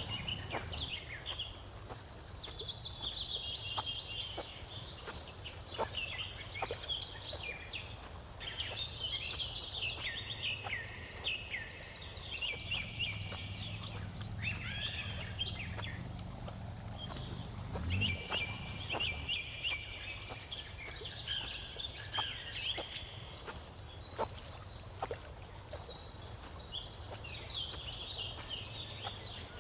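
Birds calling and singing, a dense mix of short chirps and trills, over a steady low rumble.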